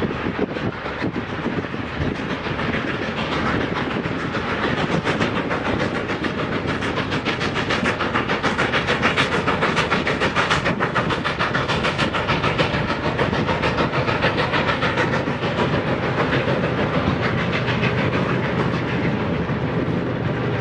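Norfolk & Western 611, a J-class 4-8-4 steam locomotive, passing close with a passenger train: rapid, rhythmic exhaust beats that grow louder toward the middle, then the rumble and clicking of the passenger cars' wheels on the rails.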